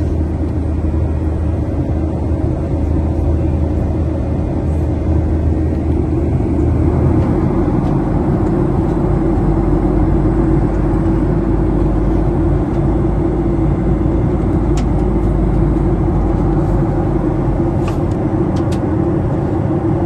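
Steady airliner cabin noise in flight: the even rush of engines and airflow heard from a window seat. A low hum under it shifts lower about seven seconds in.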